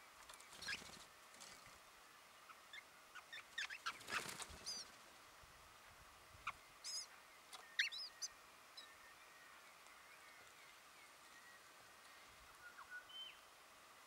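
White-browed woodswallows at the nest: scattered short, high chirps and calls, most of them in a cluster through the middle with the loudest just before 8 seconds, and a last call near the end. Two brief scuffing noises at about one and four seconds in.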